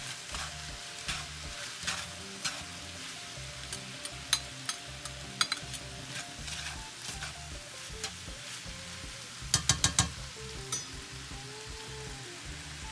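Ground beef and sliced mushrooms sizzling in a cast-iron skillet, with a slotted metal spatula scraping and clacking against the pan as the meat is stirred and broken up. A quick run of sharp clacks comes about nine and a half seconds in.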